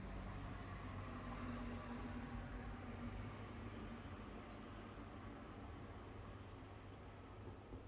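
Crickets chirping in a steady train of short high pulses over the soft, even hiss of light rain, with a low rumble in the first few seconds that fades away.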